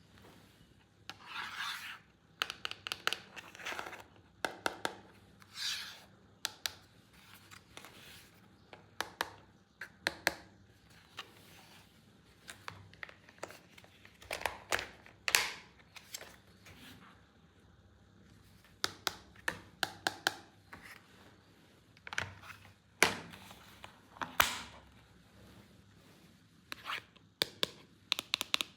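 Toy packaging and plastic parts being handled during an unboxing: irregular bursts of tearing, crinkling and scraping, with many sharp clicks and taps.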